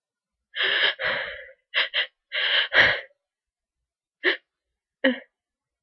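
A person's breathy sneeze build-up: a run of gasping breaths in the first three seconds, two of them short and quick, the loudest near the end of that run. Two short, quieter catches of breath follow.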